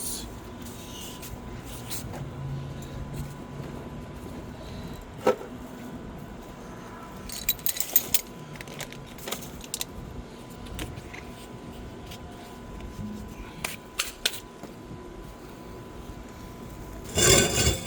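Scattered metallic clinks and clicks of hand tools and loose parts being handled during suspension work, over a steady low hum. A louder, brief burst comes near the end.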